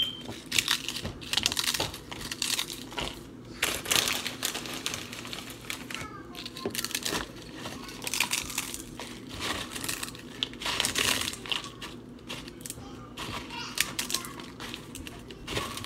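Irregular crinkling and crunching close to the microphone, in short noisy bursts about once or twice a second.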